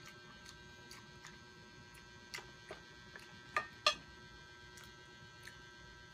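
Eating at the table: about ten scattered sharp clicks and taps, the two loudest close together a little past halfway, over a steady electrical hum.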